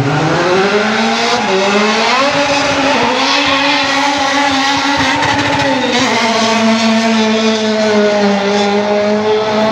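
A drag car's engine accelerating hard at full throttle down the strip. The engine note climbs sharply at the launch, then drops and climbs again at gear changes about 1.5, 3 and 6 seconds in.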